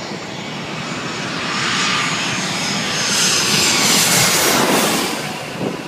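Airplane coming in to land, passing low overhead: its engine noise builds to a peak about three to four seconds in, with a high whine sliding down in pitch as it passes, then begins to fade.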